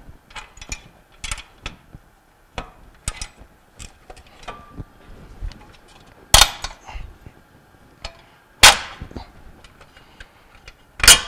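Metal clicks and clanks of hand tools on the steel coupler guard of a Bell & Gossett 1510 pump as the guard's outer half is loosened. There are three loud sharp metal knocks in the second half.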